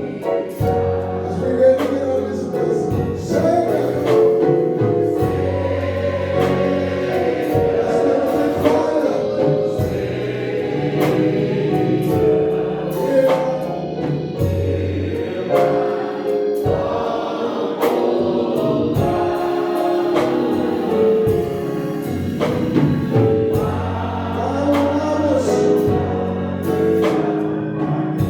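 A choir singing a gospel song with instrumental accompaniment and a steady beat.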